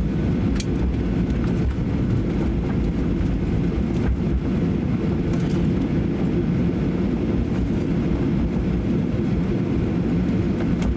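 Cabin noise inside a Boeing 737-800 rolling out along the runway after landing: a steady low rumble of the wheels and engines, with a light click about half a second in.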